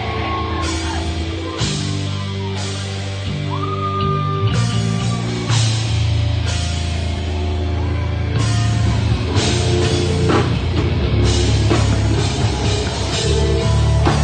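Heavy rock band playing live, with low sustained chords and drums striking loud crashes every second or so. The band grows louder about eight seconds in.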